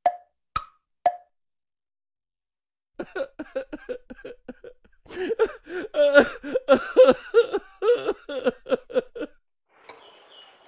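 Three short plops about half a second apart, then a few seconds of fast, chattering voices.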